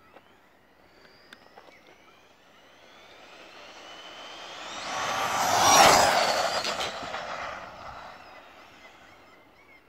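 High-speed radio-controlled Tamiya DF-03 buggy, running a 7700kV brushless motor on a 3S LiPo, passing at speed. Its high-pitched motor whine rises and grows louder as it approaches, peaks about six seconds in, then drops in pitch and fades as it goes away.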